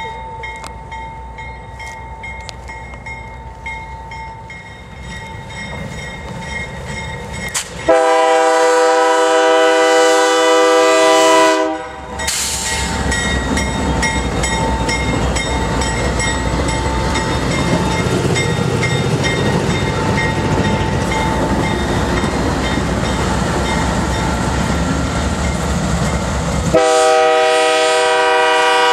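Freight train led by Canadian National diesel locomotives approaching and passing close by, engines and wheels rumbling louder as they near. A multi-chime air horn sounds one long blast about eight seconds in, lasting about four seconds, and another starts near the end.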